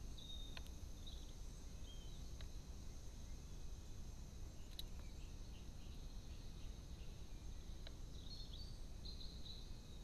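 Faint outdoor ambience: a steady high hiss with a few short, distant bird chirps, mostly in the first two seconds and again near the end, and a handful of soft single clicks.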